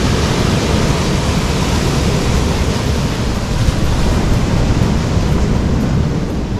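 Steady ocean surf, heavily mixed with wind buffeting the camera microphone.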